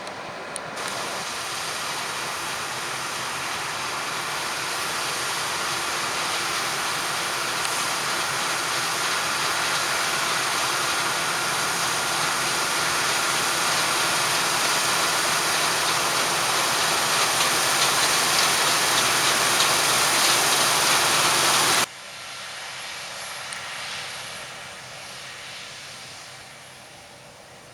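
Harvest machinery running steadily, growing louder as it draws nearer, then cutting abruptly about 22 seconds in to a quieter machine sound that fades away.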